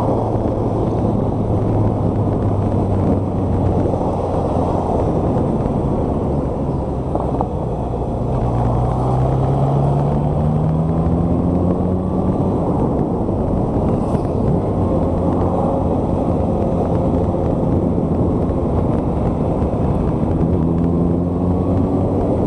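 Honda inline-four motorcycle engine running at road speed, heard from the rider's helmet or bike mic with heavy wind rush. The engine note rises as the bike accelerates about eight seconds in and again near the end.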